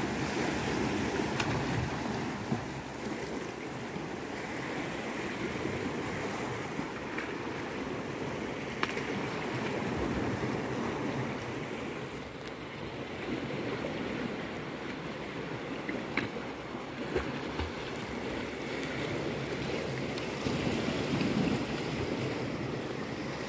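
Sea swell washing against a rocky shore, rising and falling in slow surges, with some wind on the microphone.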